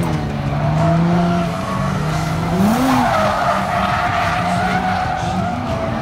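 Nissan 350Z drifting: its V6 held high in the revs with a quick blip up and down about three seconds in, over the continuous squeal of sliding rear tires, loudest at the same point.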